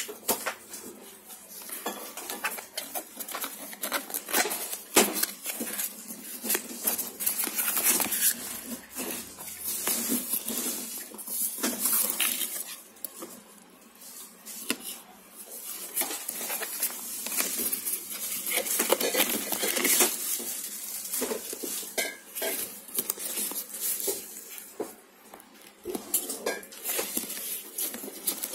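Irregular clicks, crinkles and clinks as a perfume box and its bottle are handled and unpacked.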